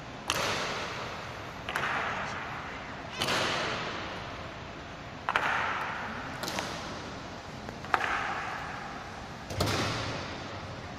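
An honor guard's drill: about seven sharp strikes of stamping boots and rifles on the marble floor, spaced a second or two apart. Each strike rings out in a long echo through the stone hall.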